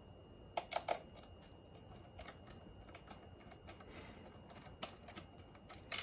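Faint, irregular clicking of a ratcheting screwdriver turning out the small screw that holds the top cover on a Lenovo ThinkCentre Tiny, with a couple of louder clicks just after half a second in.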